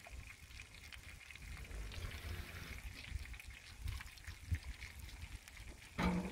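Potato chips frying in hot oil in a cast-iron Dutch oven: a faint, steady crackling sizzle. A short louder knock comes near the end.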